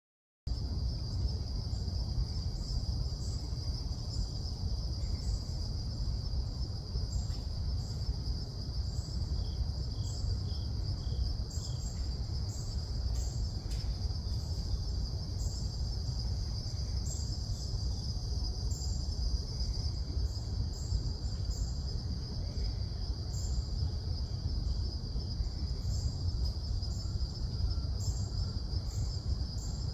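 Outdoor ambience in which a continuous, even, high-pitched insect trill, like an autumn cricket chorus, sounds over a low rumble. It starts suddenly about half a second in.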